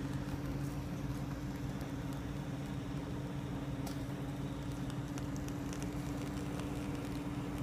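Steady low mechanical hum of a running machine, with a few faint light ticks.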